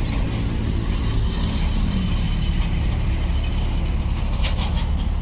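An engine running steadily, a low rumble with an even noise over it.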